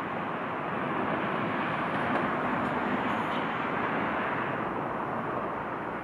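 Street traffic: a vehicle passing with a steady rushing noise that swells about two seconds in and eases off near the end.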